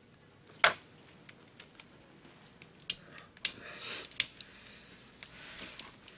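Several sharp clicks scattered through a quiet room, the loudest about half a second in, with short stretches of soft rustling around them.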